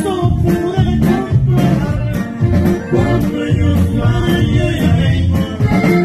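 Live norteño band music: button accordion, bass and drums keeping a steady beat, with a man singing.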